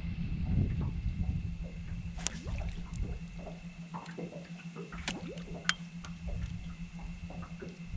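Water dripping and splashing, with a few sharp clicks about two and five seconds in, over a steady low hum and a faint steady high whine.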